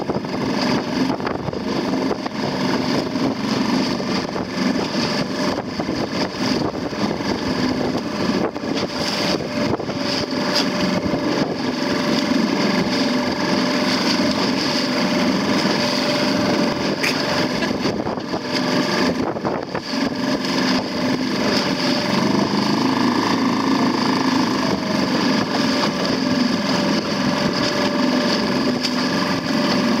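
Suzuki outboard motor running steadily under load, towing a small dinghy, over the rush of choppy water and wind.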